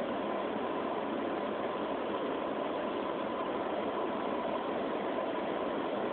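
Steady mechanical drone and hiss with a faint steady whine, recorded through a low-quality phone microphone.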